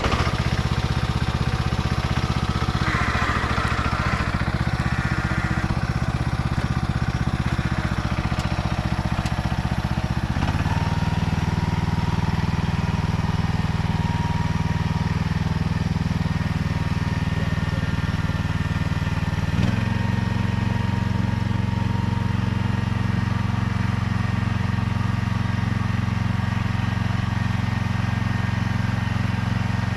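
Small engine of a transplanting machine running steadily. Its pitch shifts to a new steady note about ten seconds in and again about twenty seconds in.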